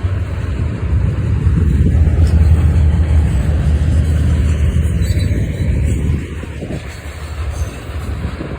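Diesel locomotive passing close with a steady low engine drone, loudest for several seconds and easing off about six seconds in.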